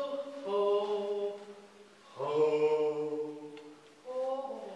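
Chant-like singing: long held vocal notes, three in a row, each sustained about a second and a half and fading before the next begins.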